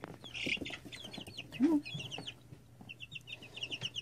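Young chicks, two to three weeks old, peeping: many short, high, falling peeps in quick succession from several birds at once. A brief low sound, the loudest moment, comes a little before the middle.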